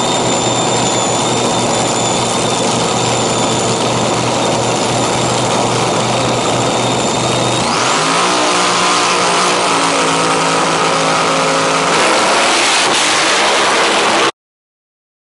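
Dragster engine running loud on the starting line with a steady high whine; about eight seconds in it goes to full throttle for the launch, the pitch sweeping up as the car pulls away. The sound cuts off suddenly near the end.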